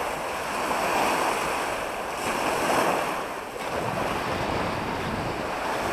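Small sea waves washing onto a sandy, shelly shore, swelling twice and easing off, with wind buffeting the microphone.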